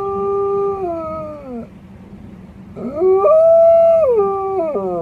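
Wolf howling. One long held note slides down and breaks off about a second and a half in. After a short pause a second howl rises to a higher held pitch, then falls away in steps near the end.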